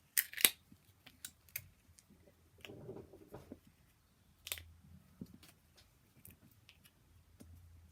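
Small plastic toy pieces and packaging being handled, with scattered light clicks and crinkles. The clicks cluster in the first half second, and there is a short muffled rustle about three seconds in.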